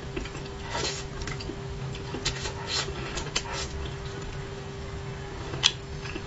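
Eating sounds at close range: chewing and mouth smacks with a few scattered sharp clicks, the loudest a little before the end, over a steady low hum.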